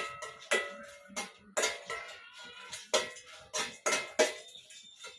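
Metal spoon clinking and scraping against a metal frying pan while stirring dried red chillies: about a dozen sharp clinks, each ringing briefly.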